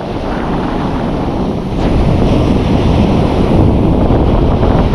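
Wind buffeting the microphone over the rush of ocean surf, growing louder about two seconds in.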